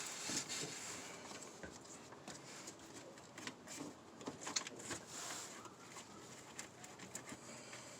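Scattered light clicks, taps and rustling of hands rummaging among parts in a truck's engine bay, searching for a dropped electrical connector.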